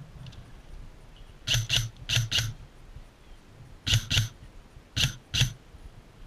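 Airsoft gun firing eight shots in four quick pairs, each pair two sharp cracks about a quarter second apart.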